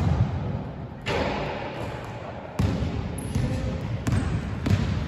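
Basketball bouncing on a hardwood gym floor, about five separate thuds spaced irregularly, each with an echo from the large hall.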